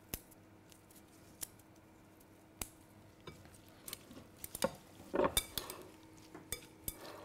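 Metal serving utensil clinking and scraping against a glass bowl as a vegetable salad is tossed: a few faint, sparse clicks at first, then a run of clinks from about four seconds in.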